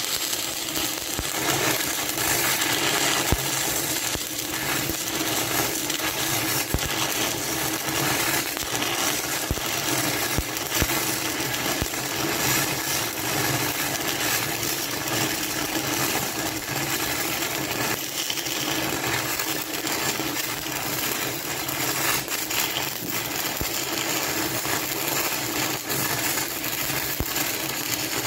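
Stick-welding arc on a 6010 electrode crackling steadily while running an overhead root pass on a steel butt joint.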